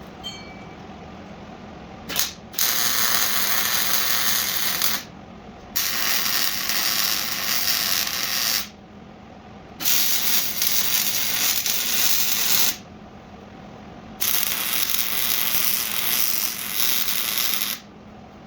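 Aerosol spray-paint can hissing in four long bursts of about three seconds each, after a brief puff about two seconds in.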